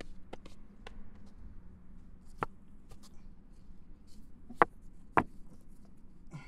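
Stones being knocked together and set down against a car tyre on gravelly ground: a scattering of sharp clacks, the loudest two close together late on.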